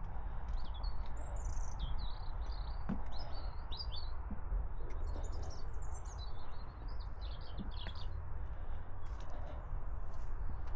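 Small songbirds chirping and twittering in quick, repeated calls throughout, over a steady low rumble.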